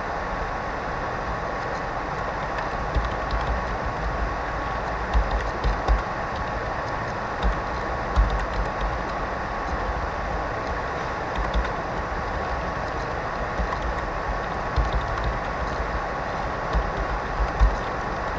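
Computer keyboard keys tapped in irregular short runs, over a steady background hiss with a faint, steady high-pitched tone.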